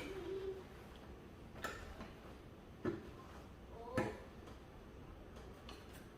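A few light clicks and taps as small model-car parts are handled and set down on a hard surface, about four of them spread a second or so apart.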